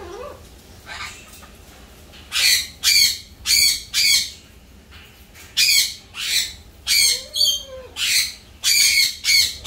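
Cockatoo giving a run of short, harsh squawks, about two a second. They start a couple of seconds in and pause briefly midway before carrying on.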